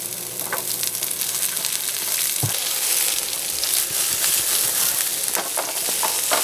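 Sliced onions sizzling as they fry in a copper pan, stirred with a wooden spatula that knocks and scrapes against the pan a few times.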